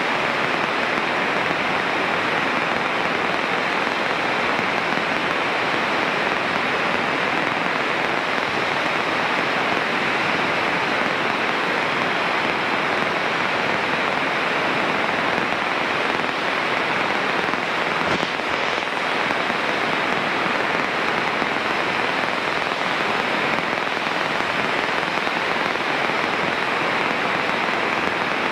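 Steady, even hiss on the Cessna 152's cockpit radio and intercom audio, with no transmissions and no clear engine note.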